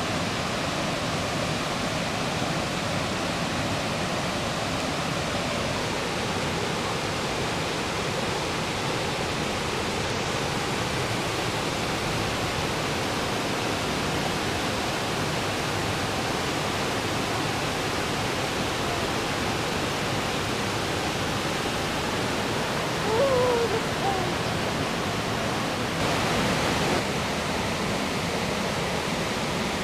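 Steady rushing of a waterfall and river cascades, a continuous even wash of water noise. A brief high call rises out of it about two-thirds of the way through.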